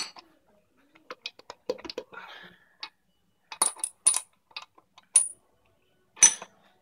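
Sharp metallic clinks and taps of a steel socket, magnet pin and wrench against the valve spring retainers of an RB25 cylinder head while the valve springs are pressed down to free the keepers. The clinks are scattered and ring briefly, loudest at the start and about six seconds in.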